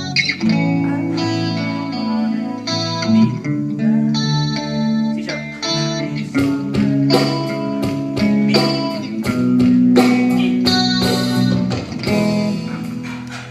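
Electric guitar played through effects during a sound check: held, ringing notes and chords with many sharp picked or strummed attacks.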